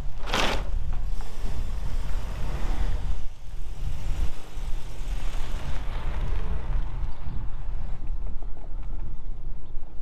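Volkswagen Golf Cabriolet's engine running as the car pulls out and drives off slowly, a steady low engine hum throughout. A brief loud rush of noise comes right at the start.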